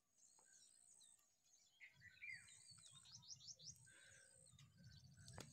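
Faint birdsong: quick runs of short, high, descending chirps, twice, over a faint low rumble that begins about two seconds in.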